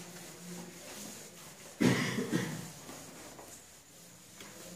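A person coughing in a short burst about two seconds in, over low room noise.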